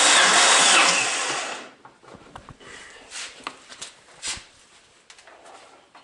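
Starter cranking the 1987 Alfa Romeo Spider's 2.0-litre four-cylinder engine over with the ignition disabled, for a compression test on the last cylinder; the cranking stops about a second and a half in. A few light knocks and clicks follow.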